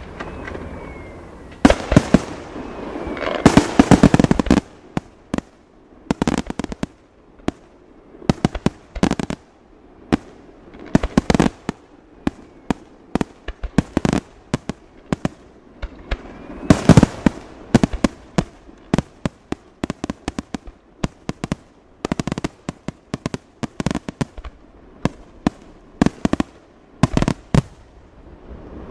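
Aerial firework shells bursting in the sky: sharp bangs in irregular volleys, with a dense rapid run of them a couple of seconds in, then scattered single bangs and short clusters.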